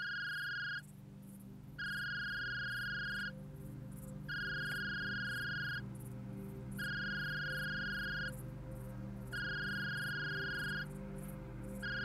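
Electronic telephone ringing: one steady, high tone in rings about a second and a half long with a second's gap between them, repeating evenly, five times and a bit. Underneath sit a steady low hum and a faint, fast high chirping.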